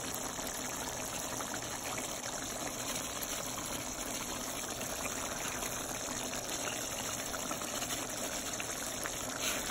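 A pot of thick tomato-based pork caldereta stew simmering, a steady bubbling.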